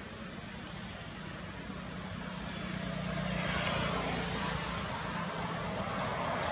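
Background motor-vehicle noise: a steady low hum under a rushing noise that grows louder about three seconds in.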